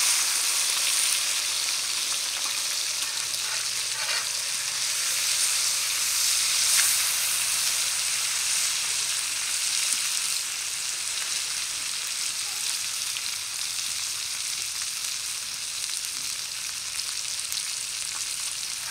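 Whole red pomfret fish frying in shallow oil on a flat tawa griddle: a steady sizzle of hot oil that eases slightly toward the end.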